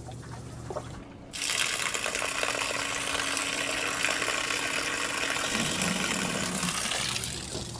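Water from a boat's shower sump pump gushing out of a through-hull outlet in a steady flow. It starts about a second and a half in and eases off near the end.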